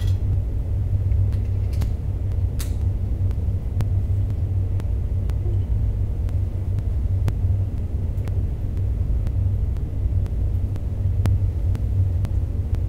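A steady low rumble with faint clicks here and there.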